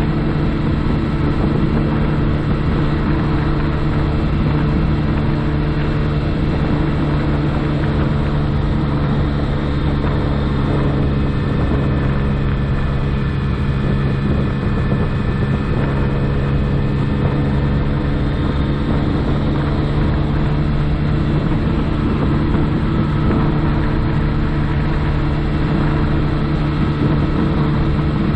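A 2007 Honda Ruckus 49cc scooter's single-cylinder four-stroke engine running steadily while the scooter is ridden, its pitch holding level throughout.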